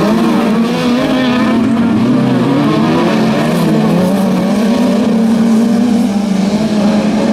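Engines of several autocross race cars running hard together on a dirt track, their overlapping notes rising and falling as the drivers accelerate and lift through the corners.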